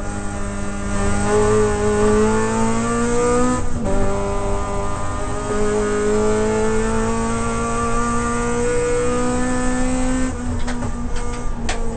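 Toyota Corolla AE92 race car's four-cylinder engine pulling under load, heard from inside the cabin. Its pitch rises, drops sharply with a quick upshift about four seconds in, then climbs slowly again, with a few sharp clicks near the end.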